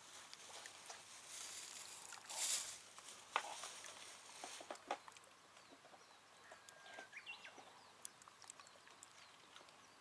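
Faint outdoor ambience: a brief rustle, a scatter of small clicks, and a short high chirp about seven seconds in.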